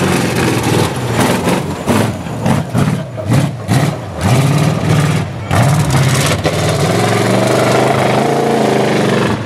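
Pickup truck engine revving hard and dropping off again and again as the truck is driven over a dirt obstacle course, then holding a longer, steadier pull near the end.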